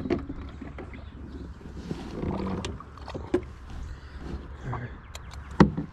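Knocks, taps and rustling of handling inside a fishing kayak, with one sharp knock near the end.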